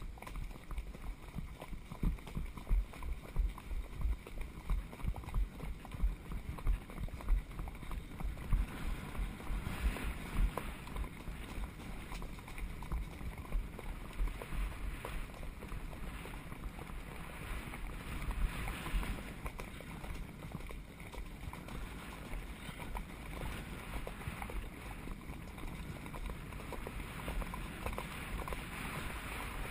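Wind rumbling on the microphone of a camera carried on horseback, with low rhythmic thumps from the horse's stride, strongest in the first ten seconds.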